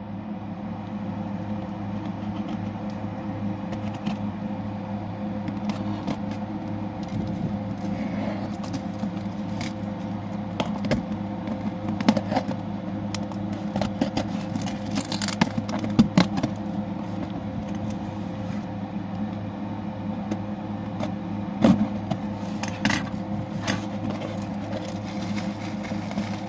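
Scissors slicing along the packing tape on a cardboard box, then the flaps being pulled open and plastic packing handled, making scattered sharp clicks, scrapes and rustles over a steady low hum.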